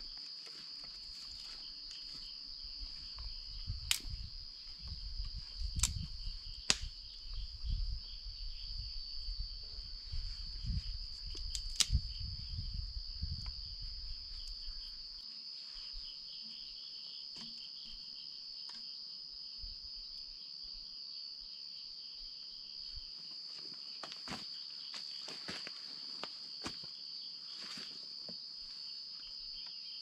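Insect chorus: one steady, high-pitched continuous drone. During the first half, low rumbling and a few sharp clicks sound over it.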